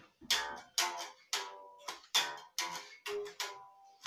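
Electric guitar strummed in chords, about two strokes a second, each ringing briefly and fading before the next.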